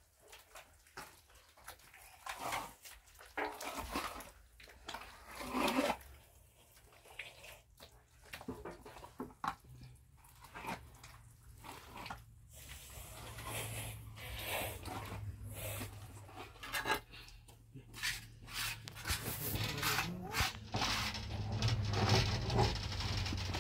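Steel trowels scraping and slapping wet plaster onto a block wall in irregular strokes, with a trowel scraped against a plaster basin near the end. A low steady hum comes in about halfway.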